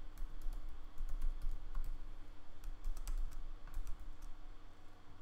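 Computer keyboard being typed on: a run of quick, irregular keystroke clicks as a line of code is entered.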